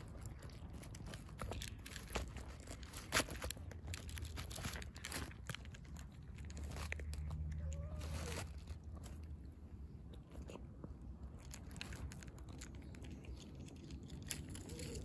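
A cat crunching and chewing dry kibble, an irregular string of sharp crunches. A low rumble joins in for a second or two around the middle.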